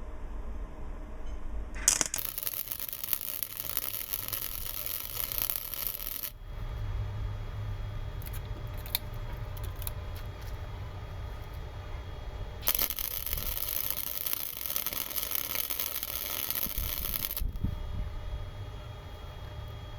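Electric welding arc on a steel bicycle frame, welding on a brake bracket. There are two runs of loud steady hiss: the first starts with a sharp click about two seconds in and stops abruptly after about four seconds, and the second starts a few seconds past the middle and lasts about five seconds. Between them a quieter low hum and a few light clicks.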